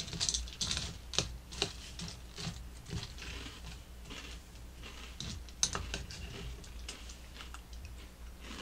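Spoons clicking and scraping against cereal bowls while sweetened corn-puff cereal is eaten, with crunching: a run of irregular light clicks.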